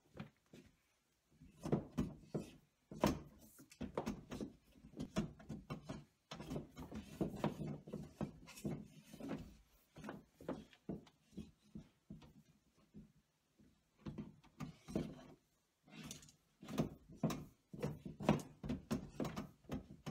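Thick cable being fed by hand into a metal breaker panel, scraping and knocking against the box and the wall: a string of irregular thuds, rubs and sharp clicks. There is a pause about a second in and another around the 12 and 14 second marks.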